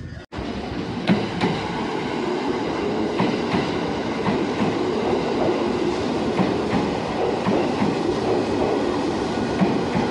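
Electric commuter train moving alongside a station platform: a steady rumble of wheels on rail, with scattered sharp clicks as the wheels pass over rail joints. The sound begins after a brief dropout just after the start.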